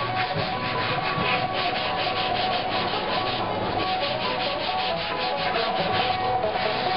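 Sanding block rubbed back and forth along a red cedar armrest in quick, even strokes, smoothing the wood.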